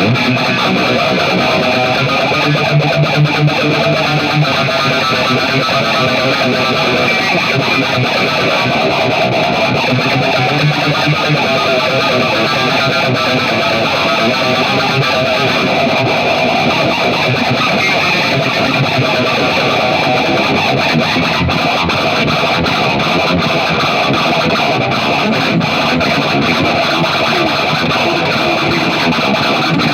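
Distorted electric guitar playing riffs, loud and continuous.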